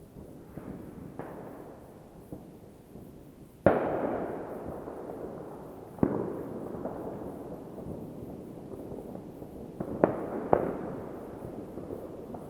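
New Year's Eve fireworks bursting at a distance: a string of sharp bangs, each trailing off in a long rolling echo. The loudest bang comes about a third of the way in, and a quick pair of bangs comes near the end.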